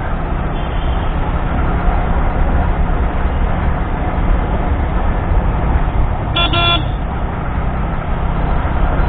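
Steady wind rush and engine noise of a Yamaha R15 motorcycle being ridden, heard through an action camera's microphone. A vehicle horn beeps once, briefly, about six and a half seconds in.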